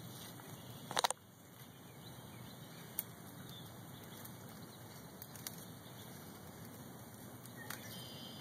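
Faint outdoor background hiss with a short rustling crackle about a second in and a single sharp click near three seconds.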